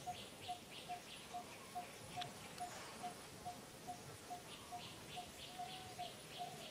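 An animal call from the surrounding woods: a short, fairly low note repeated very evenly, about two and a half times a second. Fainter high chirps come in with the same rhythm.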